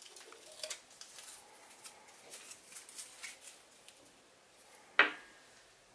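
Small clicks, taps and rustles of hands handling a plastic LED headlight housing against a metal headlight reflector, with one sharp knock about five seconds in.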